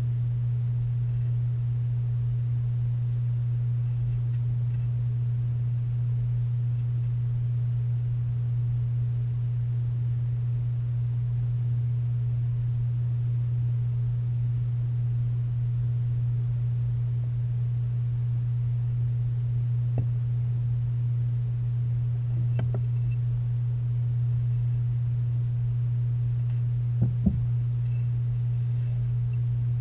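Steady low electrical hum heard underwater in a turtle's stock tank, with a few faint clicks and knocks about two-thirds in and again near the end.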